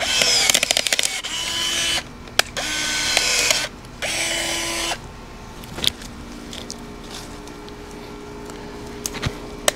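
Hand pruning shears clicking and snipping while twigs and leaves of a June plum tree rustle in short bursts as dry limbs are cut and pulled off. There is a quick run of clicks near the start, the rustling comes and goes over the first five seconds, and then it turns quieter with only a stray click.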